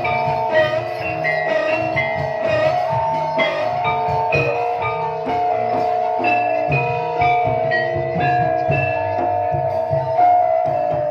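Gamelan-style music: tuned mallet instruments play a stepping melody of ringing notes over steady drum beats, the accompaniment to a barongan performance.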